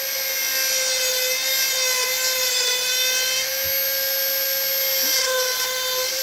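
Dremel rotary tool running at high speed through its flex-shaft handpiece, a small bit grinding into wood: a steady high whine with a rasping hiss.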